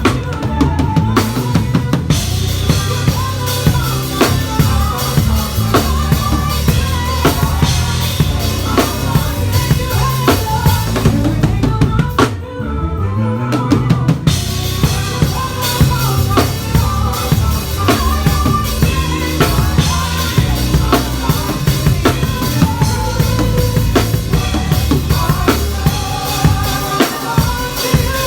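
Live drum kit played with a band: steady kick drum, snare and rimshot strokes over sustained keys and bass. About twelve seconds in, the high end of the kit drops away for about two seconds before the full groove returns.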